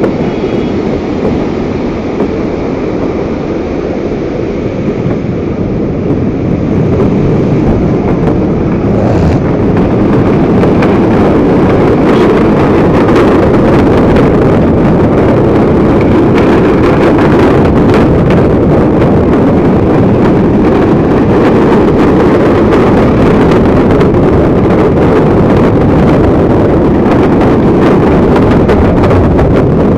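Loud, steady wind rushing over the microphone, mixed with the roar of a fast mountain river in rapids below. It grows louder about ten seconds in.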